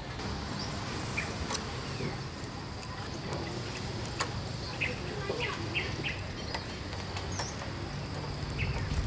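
Birds chirping on and off over a steady high-pitched insect whine, with a few sharp clicks of metal tongs against a wire grill as fish are set down on it.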